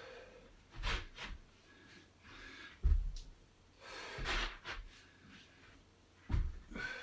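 A man breathing hard through repeated lunging steps, with dull thuds as his bare feet land on a carpeted floor, about three times.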